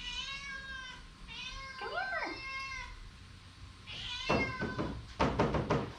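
A cat meowing repeatedly: several drawn-out calls, with a harsher, noisier call near the end.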